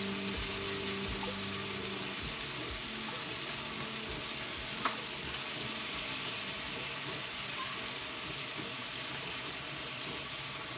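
Squid rings and chunks of fish sizzling steadily in olive oil in a frying pan, with a single faint click about halfway through.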